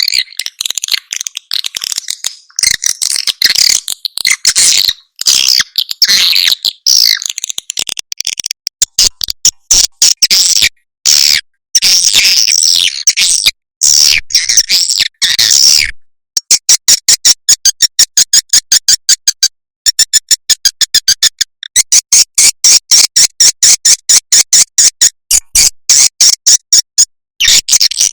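Swiftlet lure recording: loud, high-pitched twittering chirps of swiftlets, dense and chattering at first with abrupt cut-off gaps, then from about halfway a fast, evenly repeated series of short sharp chirps. It is a looped call track played to attract swiftlets to roost and nest.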